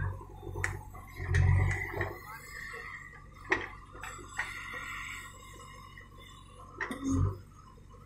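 JCB 3DX backhoe loader's diesel engine running while the rear bucket digs soil. There are several sharp clanks from the bucket and arm, and two heavier low surges, one about a second and a half in and one near the end.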